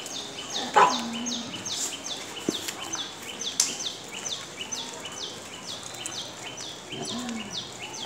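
High chirping repeated evenly, about two to three chirps a second, with each chirp dropping slightly in pitch. About a second in, a loud short cry falls in pitch to a low held note, and a weaker falling cry comes near the end.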